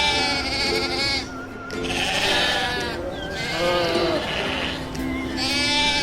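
Bleating, about four calls of roughly a second each with a quavering, wavering pitch.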